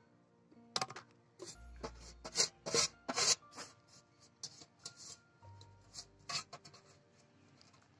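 Knife blade scraping scales off a large fish in quick scraping strokes, densest and loudest from about one to three and a half seconds in, then sparser until near the end. Faint background music with steady tones lies underneath.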